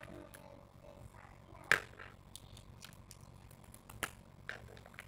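Small clicks and taps of hands handling an Arduino board, hobby servos and their plastic wire leads, with one sharp click a little under two seconds in and a few lighter ones later.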